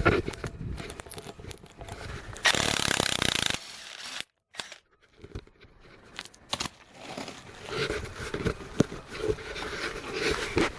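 Cordless 3/4 in. impact wrench hammering in one short burst of about a second, the loudest sound, amid scraping and clanking of tools and metal parts. The sound cuts out completely for a moment shortly after the burst.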